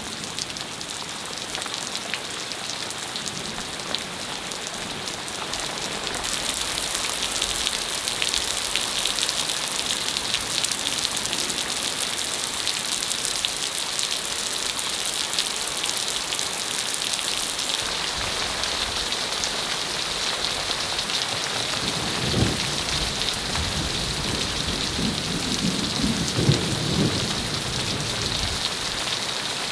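Hailstorm with heavy rain: a steady hiss of rain and hail falling, with many small sharp ticks of hailstones striking, growing heavier about six seconds in. Low rumbles of thunder come twice in the last third.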